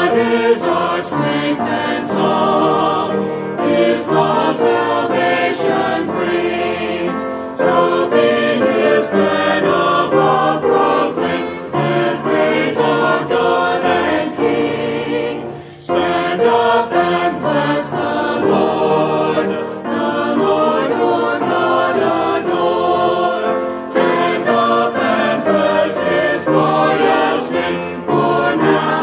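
Choir singing a hymn, phrase after phrase, with a brief pause for breath about sixteen seconds in.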